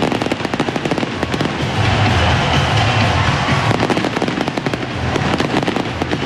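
Fireworks crackling and popping in rapid clusters over background music.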